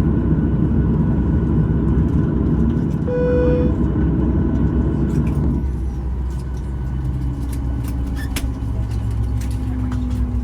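Boeing 737-900ER cabin noise as the airliner reaches the gate: a steady rumble, a single short cabin chime about three seconds in, and about two and a half seconds later the engine noise drops away, leaving a lower hum with a faint, slowly falling tone and scattered light clicks.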